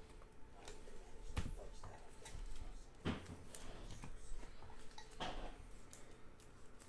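Panini Prizm basketball cards being handled: flipped through in the hands and set down on the table, with a few soft slides and scattered light clicks.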